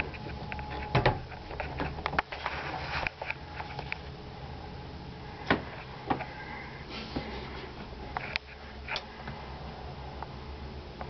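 Wooden cabinet door in a travel trailer being shut, with a sharp knock about a second in, then scattered clicks and knocks from handling, over a steady low hum.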